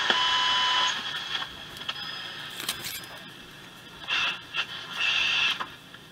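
Four-tube Hallicrafters S-120 shortwave receiver being tuned across a shortwave band, its speaker giving static and hiss with thin steady whistles in the first second and brief snatches of signal; the loudest short blasts of noise come about four and five seconds in.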